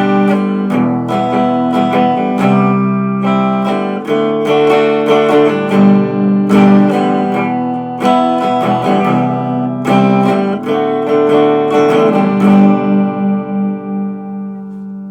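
1970s Univox electric guitar played through its neck pickup: strummed chords and picked notes, with the last chord left to ring near the end.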